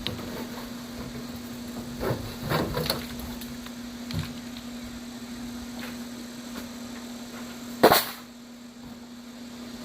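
Sheet metal and tools being handled: a brief clatter about two seconds in, a small knock, then one loud sharp knock near the end, over a steady low hum.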